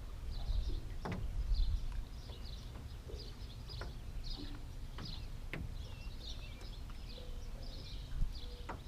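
Small birds chirping again and again in short calls over a low rumble of wind on the microphone, with a few sharp clicks.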